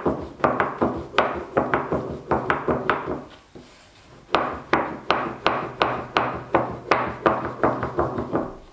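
Small wooden rolling pin knocking and rolling on a wooden board while dumpling wrappers are rolled out, a quick run of knocks about three a second. The knocks pause for about a second midway, then pick up again.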